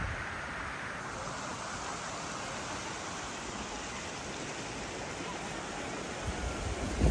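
Steady rush of a river flowing over rocks. Near the end, wind buffets the microphone in low rumbling gusts.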